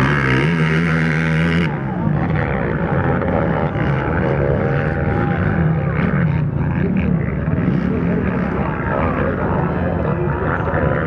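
Racing quad (ATV) engines at high revs. For about the first second and a half one engine holds a steady high-pitched note close by. After that several engines rev up and down together, with spectators' voices mixed in.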